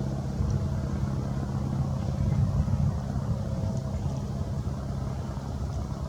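Low, steady background rumble with a droning hum underneath; no distinct pecking stands out above it.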